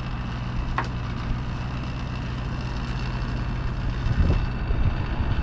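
Steady low hum of an engine running, with one sharp knock about a second in and a few dull thumps near the end.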